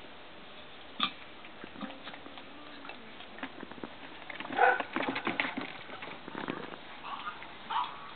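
Airedale puppies playing: scuffling and pattering with short, high puppy yips mixed in, busiest in the middle and with another yip near the end. A single sharp knock about a second in.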